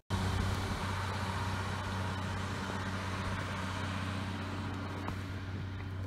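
Snowplough vehicle's engine running with a steady low hum over a broad hiss.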